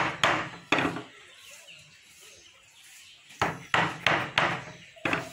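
Mallet striking the handle of a wood chisel as it cuts into a wooden board along a carving outline: sharp wooden knocks, three in quick succession, a pause of over two seconds, then five more.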